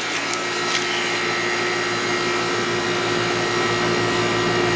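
2011 Goodman central air conditioner's outdoor unit running with a steady hum shortly after its first start-up of the season, while the compressor's oil is still getting moving and it is not yet cooling. A few light clicks in the first second.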